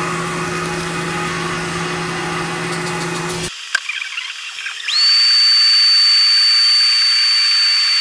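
Electric motors running. A steady low hum stops abruptly about three and a half seconds in, a few clicks follow, and then a high-pitched whine spins up quickly about five seconds in and holds steady.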